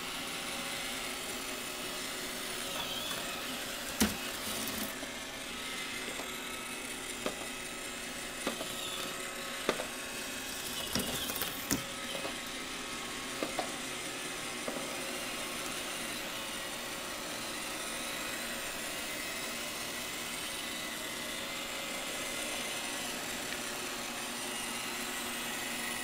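iRobot Roomba 560 robot vacuum running steadily, its motor and brushes whirring, with a few sharp knocks in the first half.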